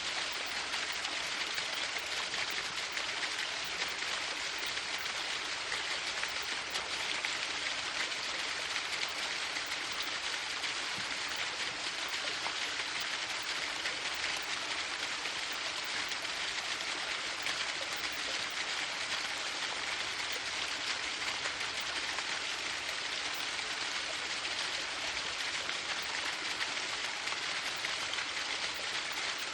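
Waterfall: a steady, even rush of falling water, hissing more than rumbling.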